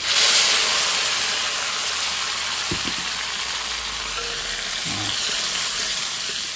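Chopped tomatoes dropped into a hot pan of frying shallots: a loud sizzle that starts suddenly and slowly eases off. There is a single knock about three seconds in.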